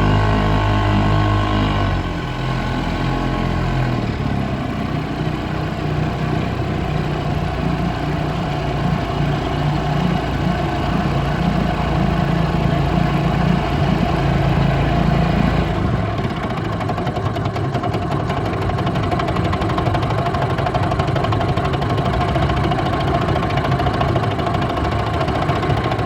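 1947 Mercury KE3 single-cylinder two-stroke outboard motor running steadily. Its note shifts about two seconds in and again about sixteen seconds in.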